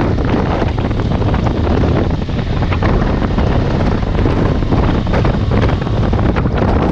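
Heavy wind buffeting the motorcycle-mounted camera's microphone while a BMW R1200GS boxer twin runs steadily underneath, the engine a low drone below the rush of air.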